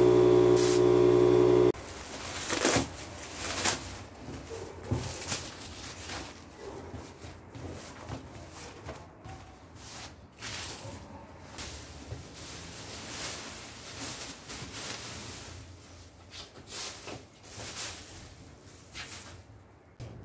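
Small air compressor humming and the spray gun hissing as it sprays woodworm treatment, stopping abruptly within the first two seconds. Then quiet rustling and crinkling of a plastic sheet being spread and smoothed by hand, with scattered clicks and taps.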